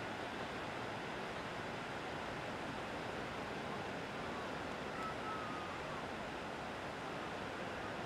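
Ocean surf breaking on a beach: a steady, even wash of waves with no single crash standing out. A faint, brief high note sounds about five seconds in.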